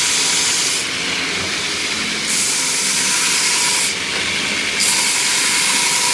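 Abrasive 3B surface grinder fitted with a belt grinding head, the running abrasive belt grinding metal with a steady hiss. The hiss swells and drops back several times, every second or so.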